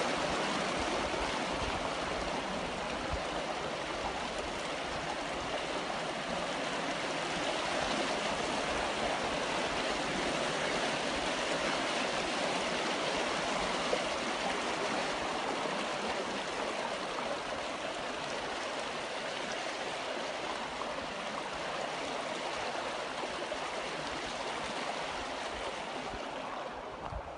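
Water rushing down a concrete irrigation channel and splashing over its stepped drops: a steady rushing that grows a little fainter near the end.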